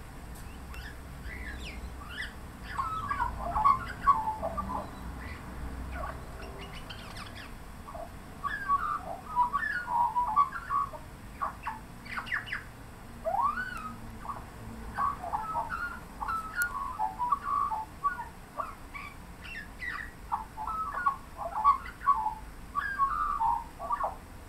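Australian magpie warbling its song: a long run of quick, varied notes that slide up and down, in phrases of a few seconds with short pauses between.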